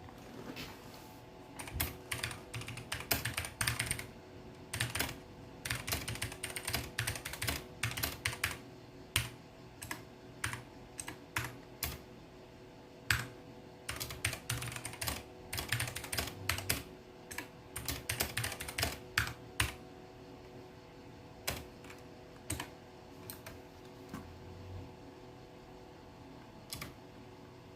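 Typing on a mechanical keyboard with clicky blue switches: dense runs of sharp key clicks that thin out to scattered single presses over the last third.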